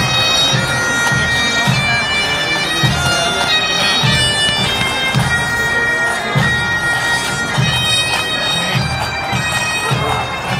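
Pipe band playing a tune: bagpipes with steady drones under the chanter melody, over a regular low drum beat.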